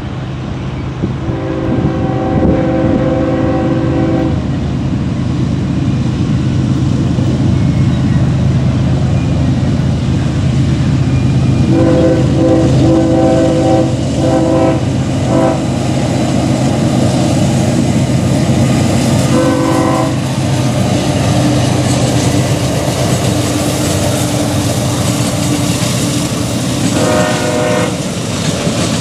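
The Nathan K5HLL five-chime horn on a CSX ES44AH lead locomotive sounds weak as it blows a long blast a second in, a broken long blast with short toots near the middle, a short toot around twenty seconds, and another blast near the end. Under the horn the passing GE diesel locomotives give a steady engine drone, and the freight cars' wheels clack over the rail joints.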